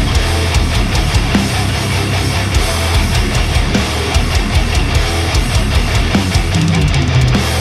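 Death metal recording: heavily distorted electric guitars over a drum kit, dense and loud with frequent drum hits.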